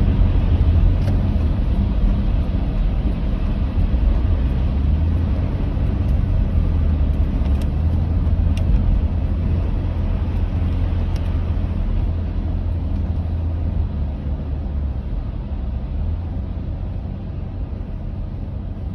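Steady low rumble of a car driving, easing off slowly toward the end, with a few faint ticks.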